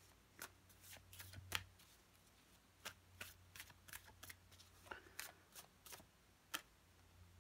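Tarot cards being shuffled by hand, heard as a quiet run of short, irregular flicks and slaps of card against card, the last one about six and a half seconds in.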